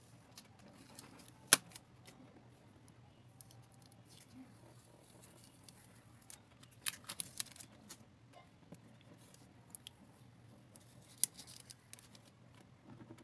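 Clear adhesive tape being peeled off the edges of a painting on paper: scattered crackles of the tape pulling away, with a sharp snap about a second and a half in, a run of crackles about halfway through, and another snap near the end.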